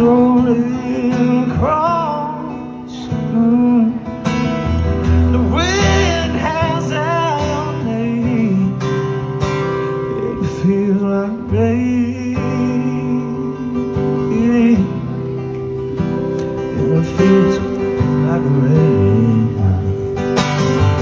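Acoustic guitar strummed in steady chords with a man singing over it, his voice wavering and sliding on held notes in the first half.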